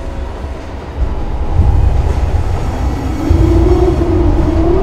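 Underground train coming into a station: a deep rumble that swells about a second and a half in, joined about three seconds in by a rising whine.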